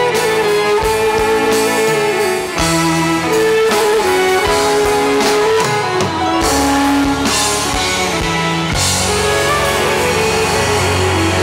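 Live Black Sea folk music with no singing: a Karadeniz kemençe bows the melody over a band with bass and drums.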